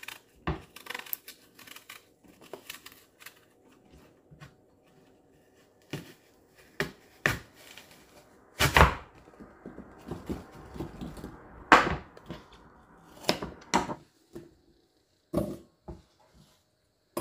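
Kitchen food preparation: scattered knocks, clicks and light clatter of utensils and containers being handled, the loudest knocks about 9 and 12 seconds in.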